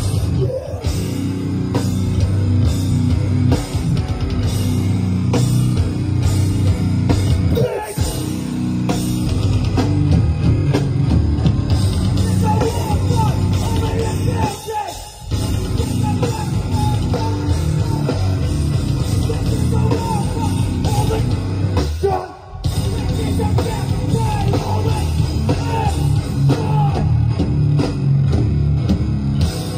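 A hardcore band playing live over a festival PA, heard from within the crowd: distorted guitars, drum kit and shouted vocals, with a few short breaks in the music.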